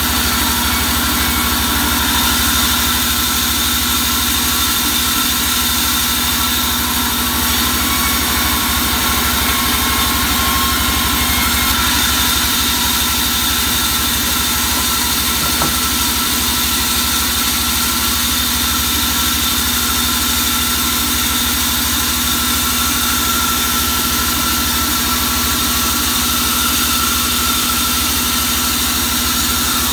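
Sawmill band saw running steadily as planks are fed through it: a constant machine drone with an even, engine-like throb underneath and a few fixed steady tones.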